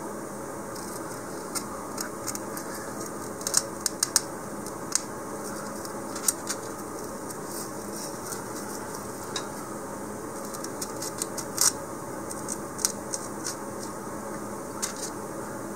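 Scattered light clicks and taps as thin wooden dowels are handled and pushed into holes in a styrofoam ball, over a steady background hum.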